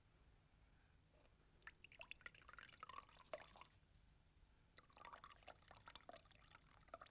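Wine poured from a bottle into glasses: two faint pours of about two seconds each, the second starting about five seconds in.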